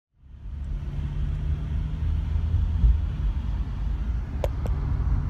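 Steady low rumble of engine and road noise inside a moving camper van's cab, fading in at the start. Two short clicks about four and a half seconds in.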